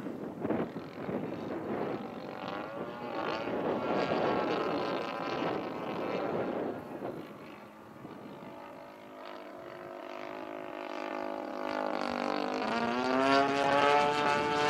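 Single-cylinder two-stroke DLE 30 gas engine of a 72-inch Extra 330SC RC aerobatic plane in flight. The engine note fades as the plane flies far off around the middle. It then steadies and rises in pitch about two-thirds of the way in, growing louder as the plane comes closer.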